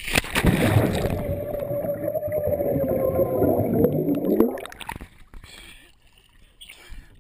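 A plunge into lake water: a splash, then about four and a half seconds of muffled underwater bubbling and rumbling heard by a camera submerged in the water, with a long muffled tone that sags in pitch near the end. The sound drops away sharply as the camera comes back up to the surface.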